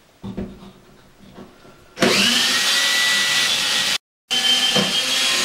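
Cordless drill boring a pilot hole for a wall anchor, the motor whining steadily at speed for about two seconds. It breaks off abruptly, then runs again for about a second and a half.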